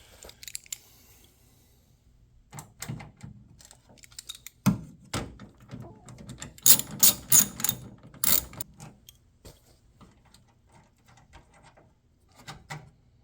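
Hand tools and metal door-handle hardware clicking and clinking while a bolt is worked loose, with a quick run of sharp clicks in the middle.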